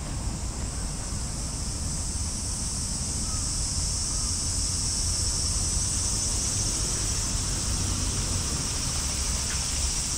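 Steady high-pitched drone of a summer cicada chorus in the garden trees, swelling slightly midway, over low wind rumble on the microphone.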